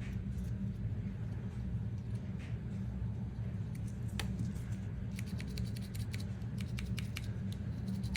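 Small sharp clicks and light scratching from handling and scrubbing AirPods with cleaning tools, coming thick and fast from about halfway through, over a steady low hum.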